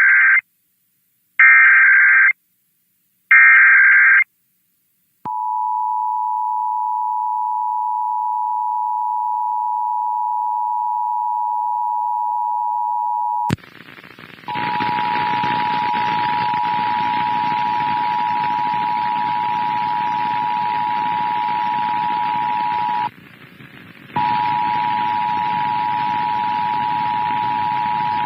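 Emergency Alert System test signal: three short bursts of the SAME digital header's warbling data tones, then the EAS two-tone attention signal (853 and 960 Hz) held steady for about eight seconds. After a click and a short gap the attention signal sounds again over a steady hiss, drops out for about a second near the end, and resumes. This is the alert tone that comes before the spoken test message.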